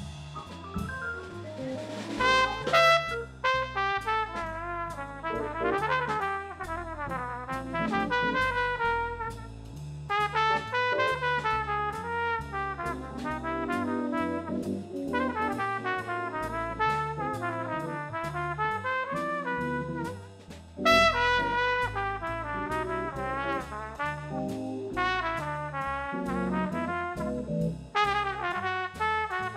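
Live jazz combo: a brass horn plays a melodic solo line over drum kit cymbals and upright bass.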